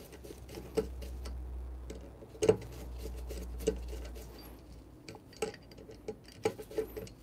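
Small metal clicks and taps as a screwdriver turns the screws holding the bottom burr of a Turin DF64P coffee grinder and moves between them, with one louder knock about two and a half seconds in.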